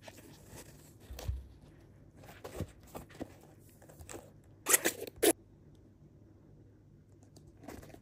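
Handling noise from an indoor football shoe being turned in the hands: fingers rubbing and scraping on its mesh collar and rubber sole, in scattered short rustles. A low thump comes about a second in, and a brief cluster of sharper scraping comes about five seconds in.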